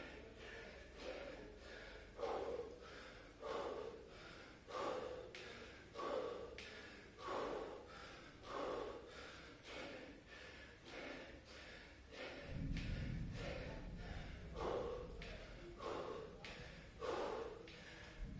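A man breathing hard and rhythmically while doing bodyweight squats, one forceful breath roughly every second and a quarter. About two-thirds of the way through, a low rumble comes in underneath.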